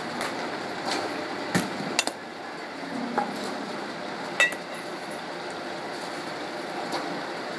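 Scattered sharp metallic clinks and knocks in a batting cage, four or five of them a second or so apart, the loudest about four and a half seconds in, over steady background noise.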